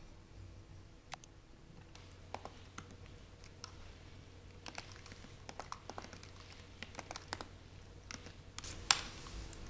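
Typing on a MacBook laptop keyboard: scattered key clicks in short, uneven runs, the loudest a single sharper click near the end.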